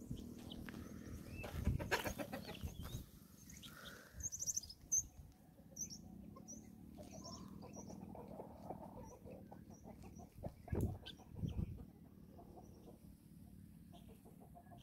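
Guinea fowl flock with scattered short chirps and clucking calls, and a few sharp thumps and flutters, a cluster about two seconds in and two more near eleven seconds.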